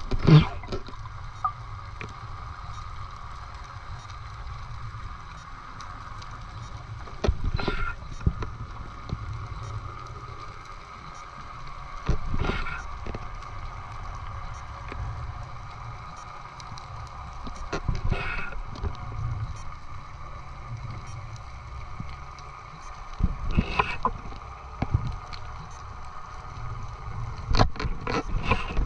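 Water at the sea surface around a snorkelling freediver: a short splashing rush about every five to six seconds over a steady low rumble.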